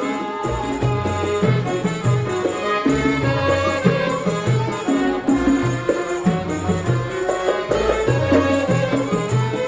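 Traditional folk-style music with a steady bass line and a busy melody.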